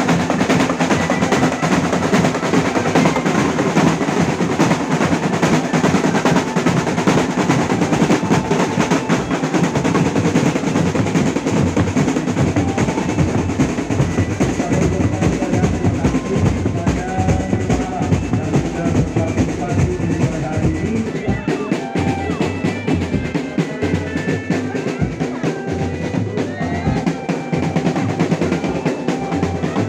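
Loud, fast drum-led music of the kind that accompanies a jaran kencak dancing horse, with rapid drum rolls throughout. Short melodic notes join the drumming about halfway in.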